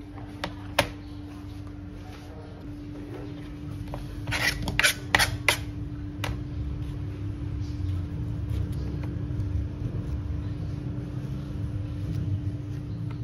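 Knife paring the skin off a pineapple: sharp clicks and knocks of the blade and fruit against a plastic cutting board, a few near the start and a loud cluster about four to five and a half seconds in. A steady mechanical hum, like a fan, runs underneath.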